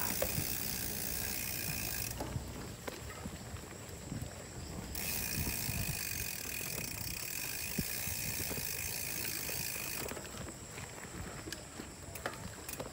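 Trek Super Marlin 5 mountain bike rolling down a dirt trail, its rear freewheel hub ratcheting as the rider coasts, with tyre noise and scattered clicks and rattles from the rough ground.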